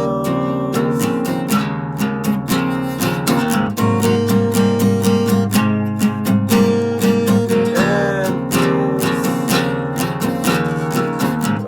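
Music: strummed acoustic guitar with a steady rhythm.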